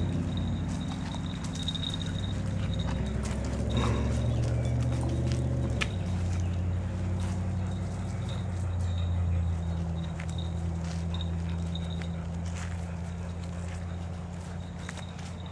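Battery-powered PeppyPup walking toy dog running on its leash: a steady motor whir with a clatter of its stepping feet, changing pitch about six seconds in, and its little bell ringing on and off.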